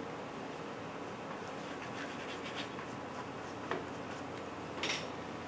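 Pastel stick scratching on pastel board in short, light strokes over a steady room hum, with a louder, sharper stroke near the end.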